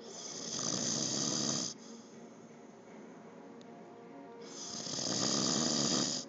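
A man snoring in his sleep: two long snores about four and a half seconds apart, each swelling over a second or so and then cutting off sharply.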